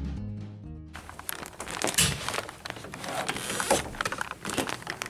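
Acoustic guitar music fading out. About a second in it gives way to irregular knocks, bumps and rustling from a handheld camera being moved and handled.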